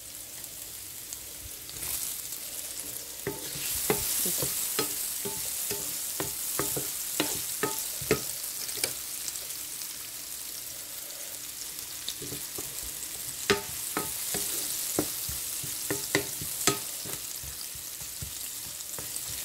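Chopped onion sizzling in hot oil with a spice tempering in a metal skillet. The sizzle gets louder a few seconds in, and a wooden spatula stirring the onions knocks and scrapes against the pan at irregular intervals.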